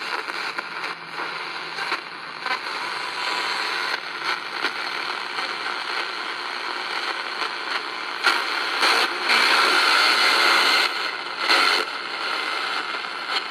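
Static and hiss from a cheap QFX R-9 portable radio's speaker while it is tuned across its first shortwave band, with frequent crackles and pops; the hiss gets louder for a few seconds after the middle. No clear station comes through.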